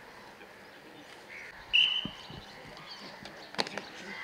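Birds calling, crows among them, under a steady outdoor background. About two seconds in, a loud high steady whistle lasts just under a second, and a sharp knock comes near the end.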